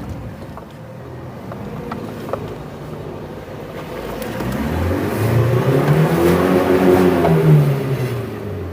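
Engine of a Leopard Black King Kong 2.2 four-wheel-drive SUV pulling in low-range four-wheel drive up a slope. It runs low and quiet at first, then the revs climb about halfway through and ease off near the end.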